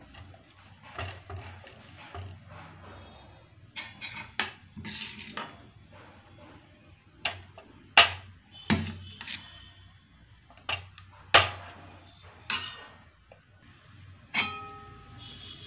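Stainless steel bowls and a serving spoon clinking against a steel thali plate as food is served: a series of sharp metallic clinks, the loudest about eight and eleven seconds in, a few ringing briefly.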